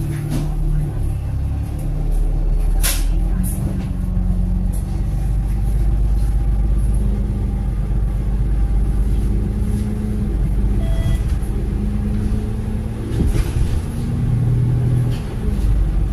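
Bus engine running with a steady low rumble, heard from inside the passenger cabin as the bus drives, its engine note shifting a few times. A sharp click about three seconds in, and a fainter one just after.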